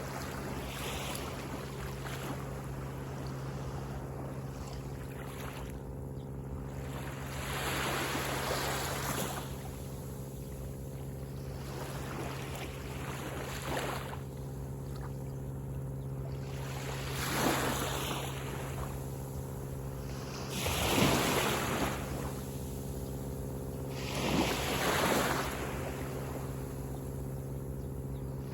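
Sea waves washing onto the beach in rushing surges every few seconds, the loudest about two-thirds of the way through, over a steady low hum.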